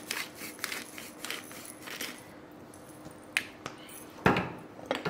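Quick run of small clicks and rattles from a handheld seasoning container as black pepper goes onto raw chicken in a glass dish. Then a hard knock about four seconds in, the loudest sound, and a lighter one just after, as things are put down on the counter.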